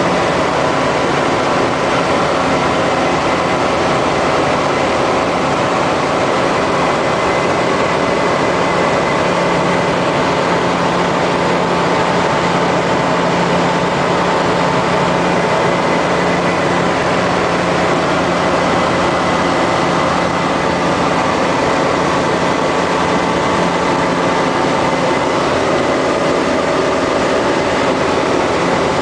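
Foxbat A-22L microlight's engine and propeller running steadily in cruising flight: a constant loud drone with rushing air noise and no change in pitch.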